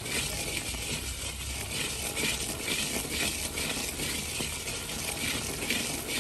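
Wooden spatula scraping round an iron karahi, stirring hot sugar syrup cooked to a two-thread stage as it turns into boora, in repeated strokes over a steady fizzing hiss from the foaming syrup.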